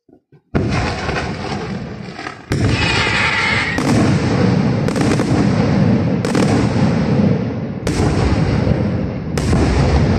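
Aerial firework shells bursting in rapid succession: the barrage starts suddenly about half a second in, then a heavy report lands every second or so, seven in all, over a continuous din from the display.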